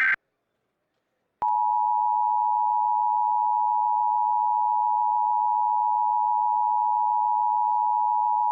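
Emergency Alert System attention signal: a loud, perfectly steady two-tone beep that comes on abruptly about a second and a half in and holds without a break. The start has the last instant of a screeching EAS digital header burst, which cuts off, followed by a second or so of silence.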